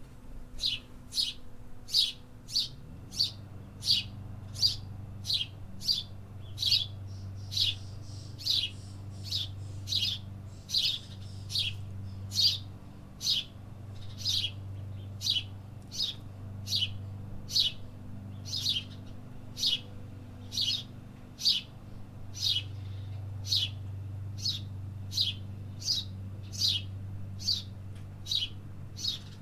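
A single bird chirping over and over, about three short, high, downward-sweeping chirps every two seconds, over a low steady hum.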